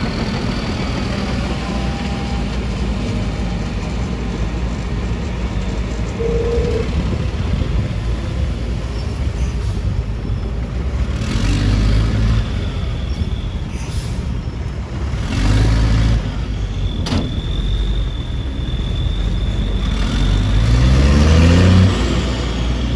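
Heavy diesel engines of construction machinery running steadily. The engine surges a couple of times, then revs up with a rising pitch near the end.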